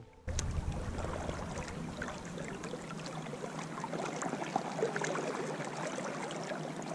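River water flowing and lapping, a steady wash sprinkled with many small splashy ticks.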